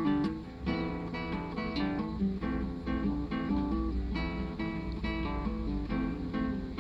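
Solo acoustic guitar played fingerstyle: a continuous plucked melody over bass notes and chords.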